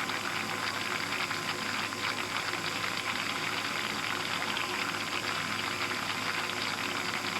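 Steady rushing noise with a faint constant hum, unchanging throughout.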